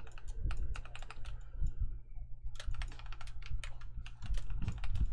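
Computer keyboard keys clicking in quick, irregular runs, with a short pause about two seconds in, over a steady low hum.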